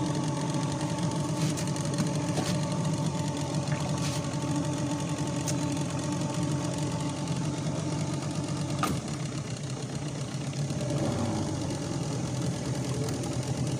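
Small outboard motor running steadily at low speed, pushing a small boat along, with a few light knocks.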